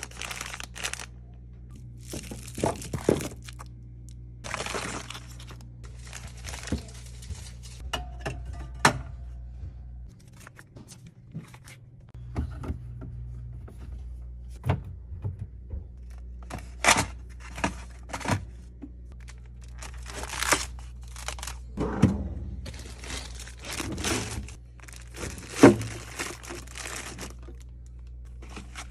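Fridge restocking sounds: plastic packaging crinkling and tearing, with containers set down in sharp knocks and clicks at irregular moments, over a steady low hum.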